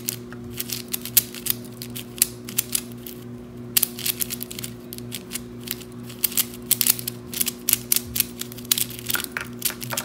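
Miniature keychain 3x3 speed cube turned rapidly by hand: a fast, uneven run of sharp clicks and clacks of the plastic layers snapping into place.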